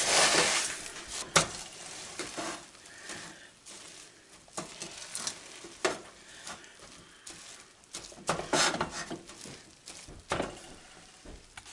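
Wooden spoon stirring crisped rice cereal into melted marshmallow in a stainless steel pot: a rustling, scraping noise, loudest in the first second, with occasional sharp knocks of the spoon against the pot.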